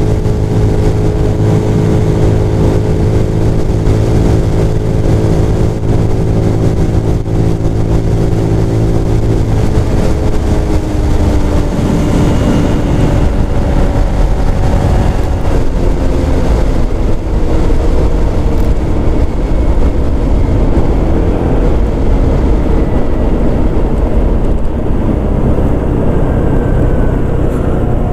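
Chinese GY6 scooter's single-cylinder four-stroke engine cruising at road speed, mixed with wind and road rush. The engine's steady drone eases off about ten seconds in, leaving mostly wind and road noise with a gently falling engine note.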